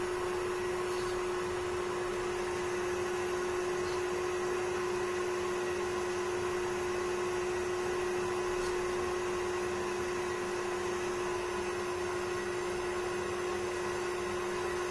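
Nasal aspirator's suction motor running steadily without a break: a constant hum with one steady tone under an even whirring hiss.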